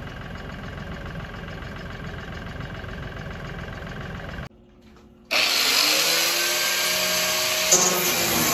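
A tractor engine runs steadily while it carries the tank. About halfway through, the sound cuts away and an angle grinder starts up with a rising whine that settles into a loud, steady grind as it cuts through the steel of an old fuel-oil tank.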